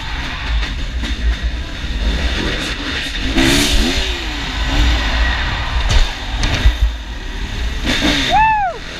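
Four-stroke Kawasaki KX450 dirt bike running and being ridden at low speed, heard from the rider's helmet camera with a heavy low rumble on the microphone and a few knocks. A short rising-and-falling pitched sound near the end.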